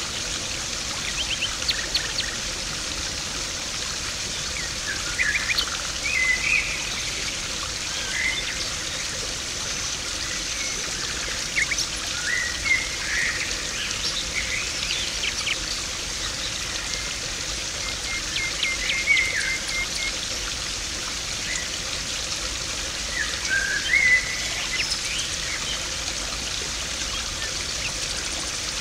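Garden pond water trickling and splashing steadily, with small birds chirping now and then over it.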